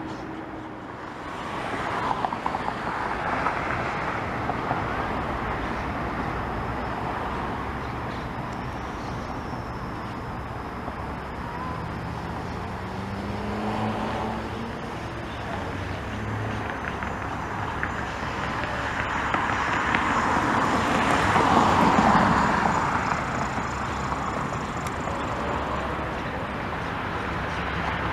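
ELA 10 Eclipse gyrocopter's Rotax 914 four-cylinder engine running at low power, heard from a distance with its pusher propeller, over steady background traffic noise. A broad rush of noise swells and fades about twenty seconds in.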